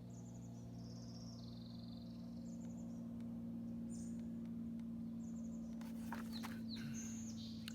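Backyard birds chirping in short, quick high trills over a steady low hum, with a few sharp ticks near the end.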